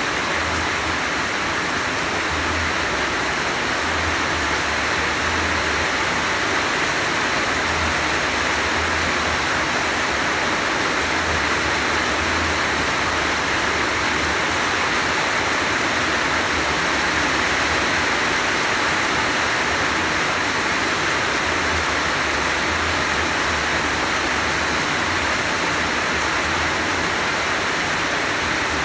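Heavy rain falling in a steady downpour, an even hiss that holds unchanged throughout.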